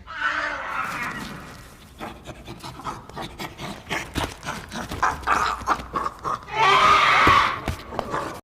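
Thumper's creature vocal effects: a string of animal-like pants and rough vocal noises, with a loud outburst at the start and a longer, loudest one about seven seconds in.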